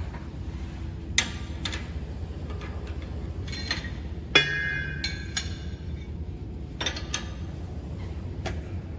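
Metal tools and machine parts clinking and knocking during disassembly, about eight separate strikes, over a steady low hum. The loudest strike, about halfway through, rings on briefly like struck steel.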